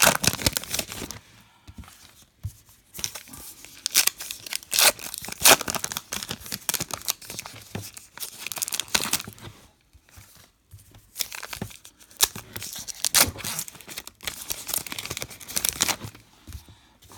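Foil trading-card wrappers being torn open and crinkled, in irregular bursts of ripping and crackling.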